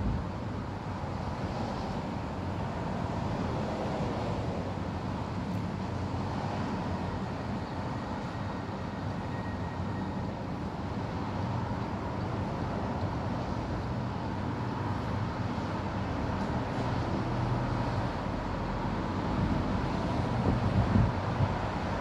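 Steady hum of road traffic on a multi-lane road far below, with wind buffeting the microphone near the end.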